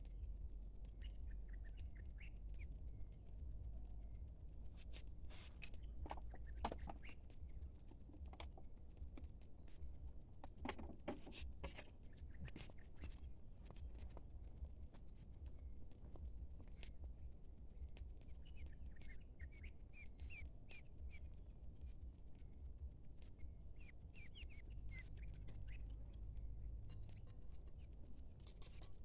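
Ducklings peeping softly in short, scattered chirps, with occasional clicks and rustles.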